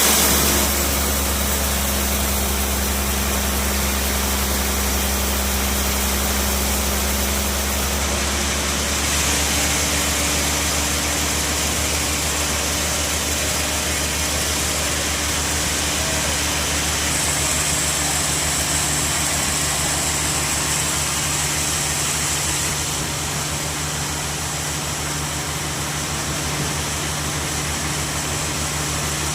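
Rail-mounted band sawmill running with a steady mechanical drone. Its low tone shifts about eight seconds in, and a higher hiss joins for several seconds past the middle.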